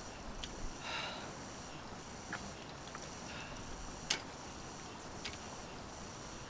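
Faint breathing of a man who has just stopped cycling: a sniffing breath about a second in, with a few sharp clicks, the loudest just after four seconds, over a steady high hiss.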